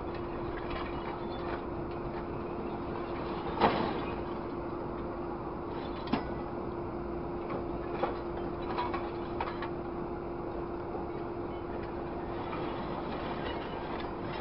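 Grapple truck's hydraulic crane working an orange-peel grapple in scrap metal: a steady mechanical hum runs throughout, with sharp metallic clanks of the grapple and scrap, the loudest a little under four seconds in and others around six and eight seconds.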